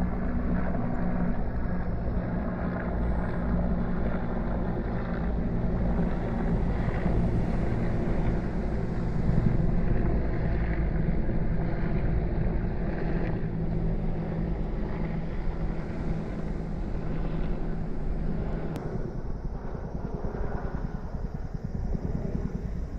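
Steady low engine drone over a heavy rumble. The hum fades away about nineteen seconds in, leaving the rumble.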